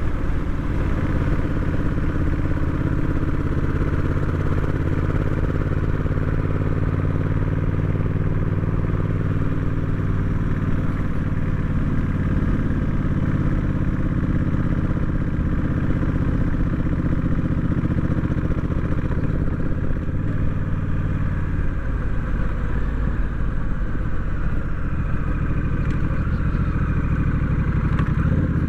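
Honda Rebel 1100 DCT's 1,084 cc parallel-twin engine running under way, a steady engine note that rises and dips slightly in pitch with the throttle.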